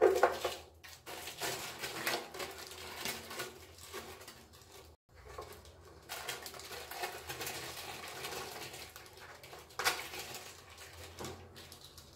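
Irregular rustling and crinkling of thin pastilla pastry sheets as they are laid and pressed by hand into a dish lined with baking paper, with light knocks against the dish.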